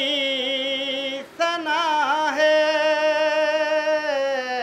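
A man singing Urdu devotional verse unaccompanied, drawing the words out in long held notes with a slow waver. He breaks off briefly a little over a second in, then holds a long note that steps down in pitch near the end.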